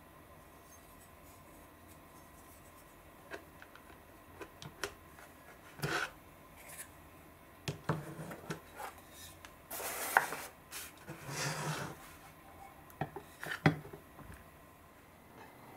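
Handling sounds: a rubbery trivet is rubbed and slid about on a tabletop with small clicks and scrapes, then a metal single-slice hot sandwich maker is set down onto it with one sharp knock near the end.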